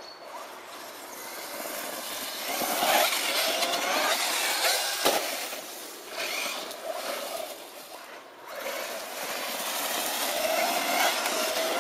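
Radio-controlled off-road monster trucks driving over dirt and dry leaves, their motors revving up and down as the level swells and dips. There is a sharp knock about five seconds in.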